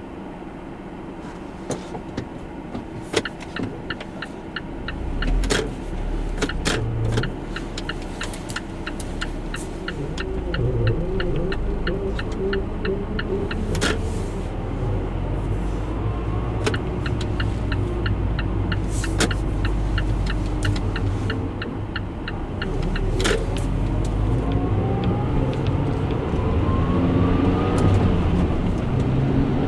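Car driveline noises: a regular clicking about three to four times a second with louder knocks now and then, over a low rumble. A whine rises in pitch near the end as the car picks up speed.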